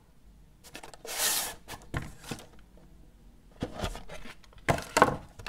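A switch box being handled and opened: a brief sliding rub about a second in, then several knocks and clicks of the packaging.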